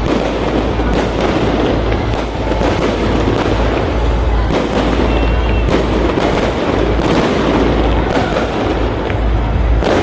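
Fireworks display: shells bursting one after another, about one bang a second, over a continuous low rumble.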